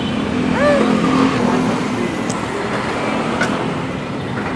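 Steady city street traffic noise, with vehicle engines running.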